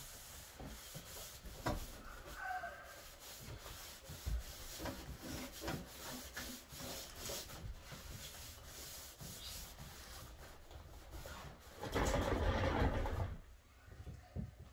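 Hand sanding of a race car's trunk lid: sandpaper rubbing back and forth in repeated short strokes, with a louder burst about twelve seconds in.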